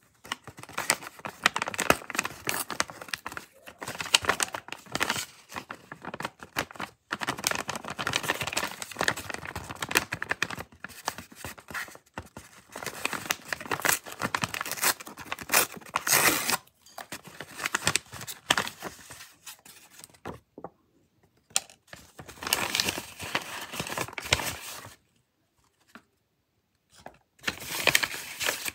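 Paper bag crinkling and rustling as it is handled and torn open, in irregular bursts with short pauses about 20 and 25 seconds in.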